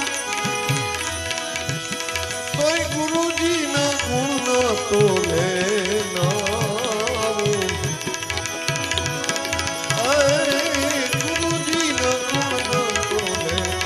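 Indian devotional bhajan music between sung lines: a hand drum keeps a steady beat under a sliding, wavering melody.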